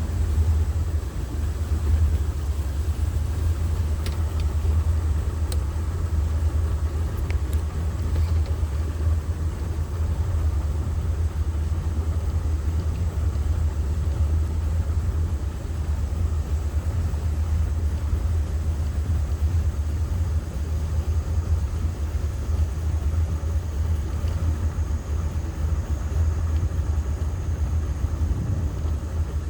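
Motor launch under way, its engine giving a steady low drone.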